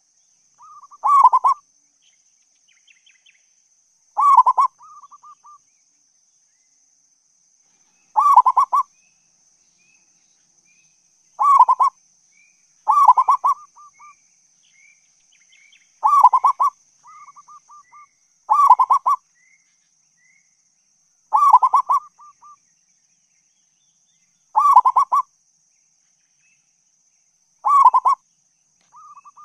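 Zebra dove (perkutut) cooing: a short burst of rapid cooing notes about every three to four seconds, ten times, several followed by a softer quick trill.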